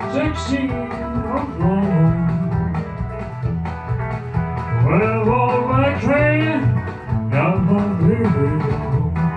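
Man singing into a handheld microphone over a rockabilly-style backing track with guitar and bass. The vocal comes in three sung phrases with short gaps, over a steady backing.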